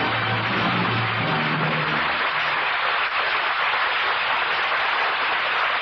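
Studio audience applauding steadily at the end of an old radio drama broadcast, with the last of the orchestral closing music fading out under it in the first two seconds.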